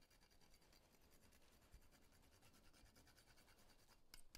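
Faint, rapid scratching of a whole nutmeg being grated on a small flat metal grater, with a slightly louder scrape near the end.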